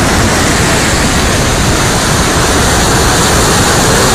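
Muddy flash-flood torrent rushing in spate: a loud, steady roar of water with no let-up.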